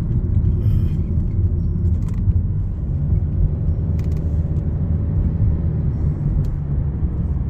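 Steady low rumble of engine and tyre noise heard inside a moving car's cabin.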